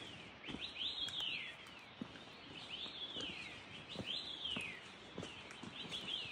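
Birds calling: repeated whistled notes, each rising briefly and then sliding down, several overlapping one another, over the soft irregular thuds of footsteps on a trail.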